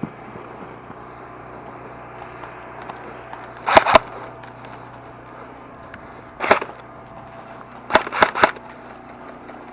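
Airsoft guns firing in short volleys: a quick pair about four seconds in, a single one a couple of seconds later, and three close together near the end, with faint pops between.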